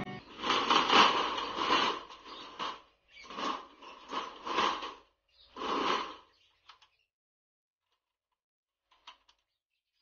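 Metal droppings trays of a bird breeding cage being slid in and out of their slots under the cage: a run of four scraping slides, followed by a couple of faint clicks.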